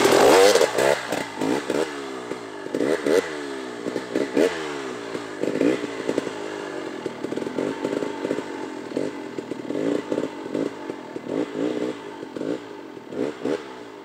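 KTM 300 XC-W two-stroke dirt bike riding away, its engine revving up and down in quick throttle blips over and over and growing fainter as it goes into the distance.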